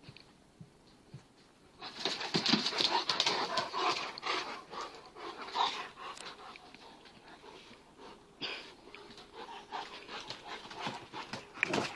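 Two dogs, a big 8-month-old Kangal puppy and a smaller Kangal cross, play-fighting: panting and scuffling that starts about two seconds in and is busiest for the next few seconds, with another flurry near the end.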